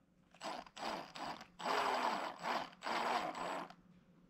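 Electric starter cranking the rebuilt 1988 Honda TRX200SX single-cylinder engine without it firing: three short bursts, then two longer cranks of about a second each, with a rising and falling whir. The engine is being turned over to check that oil reaches the top end.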